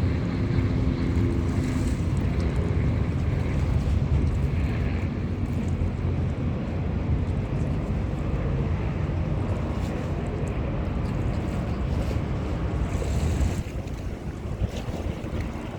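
Wind buffeting the microphone: a steady, loud low rumble over the noise of the river, easing off about fourteen seconds in.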